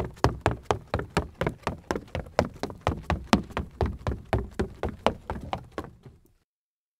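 Sneakers running on a wooden floor: quick, even footfalls, about four to five a second. They fade away about six seconds in, leaving silence.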